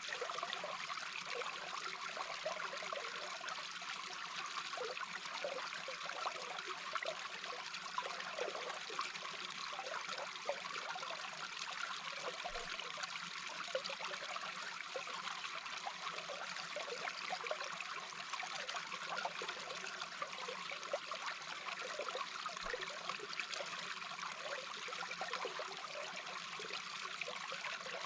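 A small babbling brook heard underwater: a steady rush of flowing water with constant fine bubbling.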